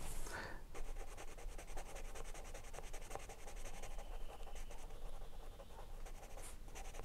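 Coloured pencil shading on paper: many quick back-and-forth strokes scratching steadily.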